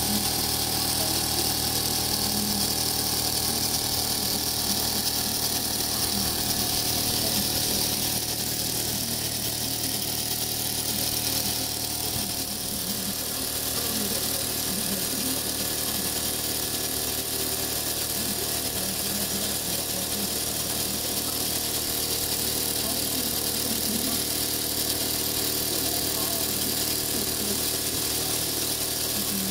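Old Mamod toy steam traction engine running steadily under steam, belt-driving a Meccano threshing machine: a steady mechanical whir of spinning pulleys and gearing with light rattling and a high hiss.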